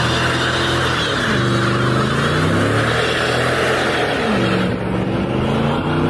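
Chevrolet Corvette V8 revving through a burnout, its pitch dipping and climbing back about three times, over a steady hiss from the spinning rear tyres.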